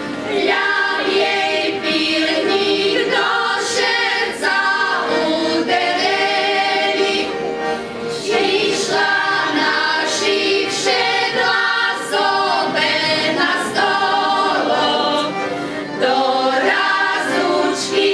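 Women's folk choir singing a folk song together in harmony, with the voices sustaining long notes.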